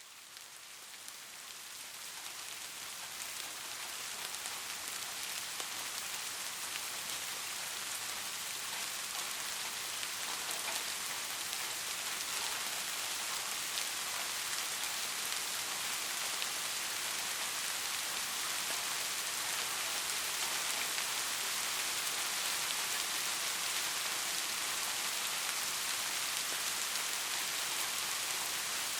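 Soft, steady rain falling on a surface, a dense patter of drops that fades in over the first few seconds and then holds even.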